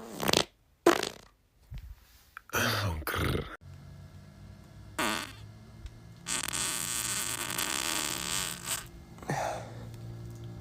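Farts: a few short blasts, then a long hissing one lasting about two and a half seconds, over a steady low hum.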